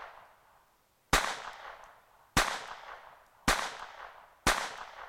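Colt 1908 Vest Pocket pistol firing .25 ACP, four shots about a second apart, each followed by a short fading echo. The pistol is cycling and feeding each round.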